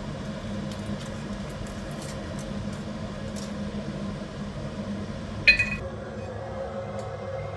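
A steady low hum with faint light ticks. About five and a half seconds in, a single sharp clink of teaware rings briefly, and the hum stops near the end.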